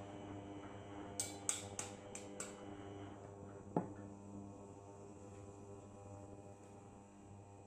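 Kitchen clatter while an egg fries in a pan: a quick run of five or six sharp clicks, then a single louder knock, over a steady hum.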